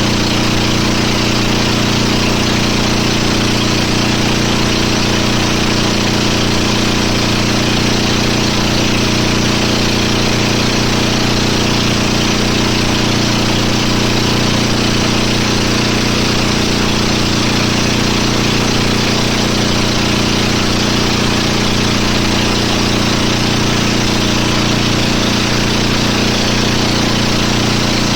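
Boat engine running steadily at a constant speed, a low even hum with hiss over it and no change in pitch or level.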